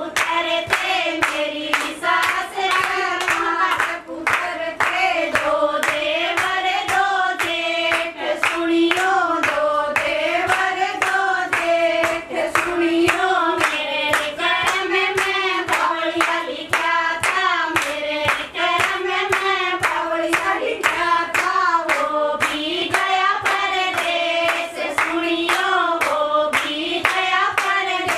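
Women's voices singing a traditional Haryanvi folk song, the melody carried unaccompanied over a steady beat of hand-claps.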